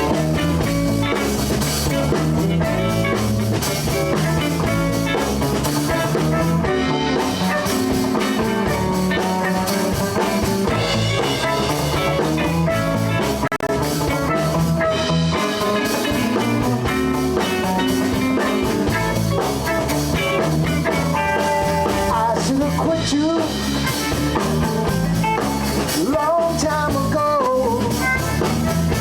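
Live blues band of drum kit, electric guitars, violin and bass playing the opening of a song straight after a count-in, with bending lead notes near the end.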